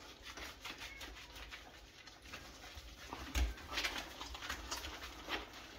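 Hands lathering shampoo into a wet Yorkshire Terrier puppy's coat in a stainless steel sink: soft, irregular wet squelching and rubbing.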